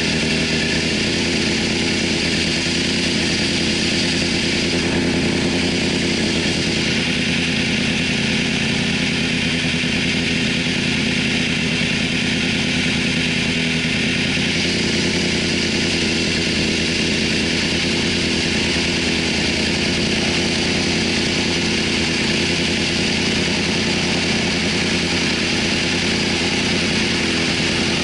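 2004 Yamaha YZF-R6's inline-four engine idling steadily, the bike standing still.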